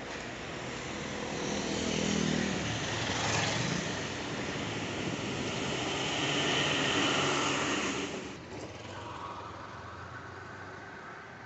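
Road traffic: motor vehicles passing, loud for the first eight seconds and then dropping off.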